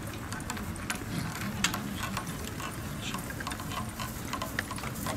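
Irregular clicks and knocks from a harness-racing trotter's hooves and its sulky and harness as the horse walks past on turf, over a low background murmur.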